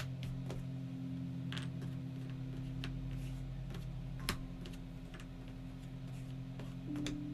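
Cardboard jigsaw puzzle pieces clicking and tapping against a tabletop as they are handled and put down. The clicks are scattered, the sharpest at the very start and about four seconds in, over a steady low drone.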